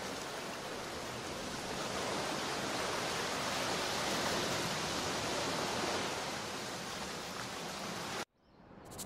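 Surf on a sandy beach: a steady wash of breaking waves that swells a little midway and cuts off suddenly about eight seconds in.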